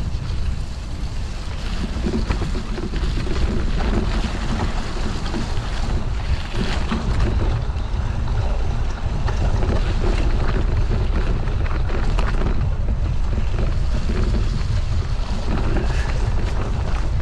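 Wind buffeting the microphone: a steady low rumble of wind noise with scattered crackles.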